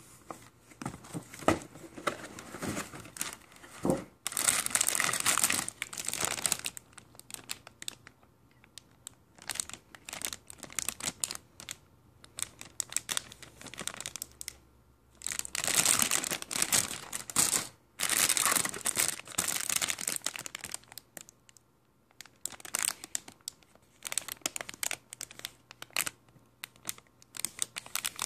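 Clear plastic bags around plastic model-kit runners crinkling as they are handled, in several bursts a few seconds long with quieter rustling between.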